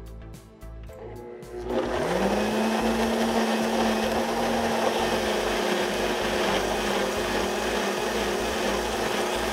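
Countertop blender pureeing a thick yogurt, buttermilk and fresh herb mixture. The motor starts about two seconds in, spins up quickly to a steady whine and then runs at full speed with a loud whooshing churn.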